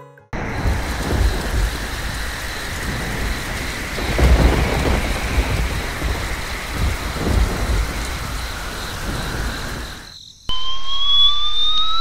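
Rain-and-thunder sound effect: steady heavy rain hiss with low rolls of thunder about four and seven seconds in, cutting off sharply about ten seconds in. Then a rising whistle-like glide near the end.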